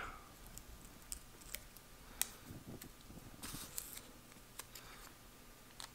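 Small scissors snipping a piece of foil candy wrapper, trimming it to shape: about half a dozen faint, irregular snips, the loudest about two seconds in, with a quick cluster of snips past the middle.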